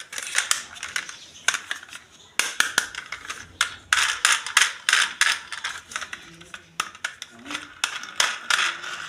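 Crinkling, rustling and sharp irregular clicks of toy packaging being opened and handled by hand, busiest in the middle and again near the end.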